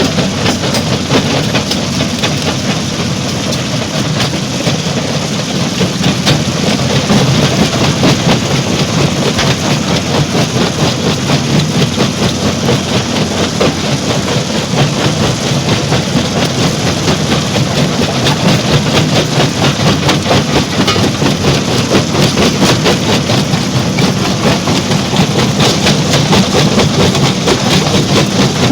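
Stone crusher plant machinery running steadily under load: a loud, dense grinding and rumbling with a fast, even pulsing.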